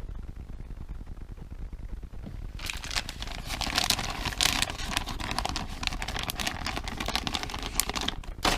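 Plastic tackle packaging crinkling and rustling as it is handled, starting about two and a half seconds in and running for several seconds before dying away near the end.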